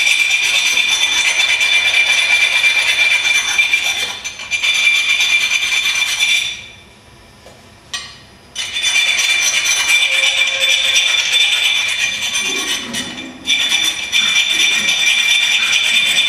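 Hand file rasping with rapid strokes against a small part held in the hands, deburring rough bits. It runs in three long spells, pausing about six and a half seconds in and again briefly about thirteen seconds in, with a single click in the first pause.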